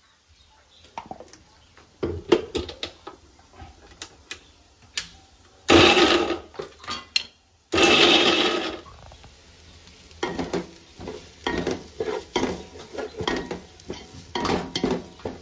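Kitchen utensils and steel pots and dishes clinking and knocking. About midway there are two loud bursts of rushing noise, each a second or so long.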